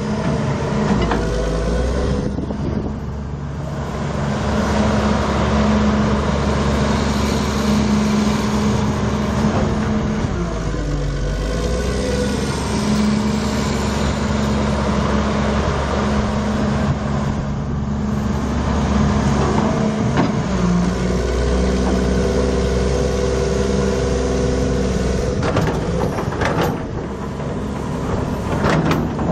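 Cummins M11-C six-cylinder turbo diesel of a Halla HE360LCH excavator running steadily. Its pitch dips briefly about ten seconds in and again about twenty seconds in, and a few knocks come near the end.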